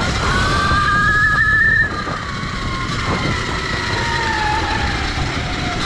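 CZEM Drill One electric dirt bike's electric motor whining as it accelerates, then about two seconds in the throttle eases off and the whine falls in pitch as the bike coasts, over a steady low rumble of wind and tyres on the dirt trail.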